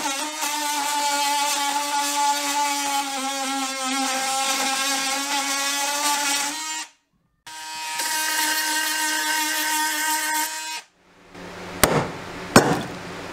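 Craftsman 20-volt brushless cordless oscillating multi-tool buzzing with a steady high whine as its blade plunge-cuts through wooden floor blocking; it stops about seven seconds in, starts again half a second later and stops again near eleven seconds. Then two sharp knocks on the wood about half a second apart.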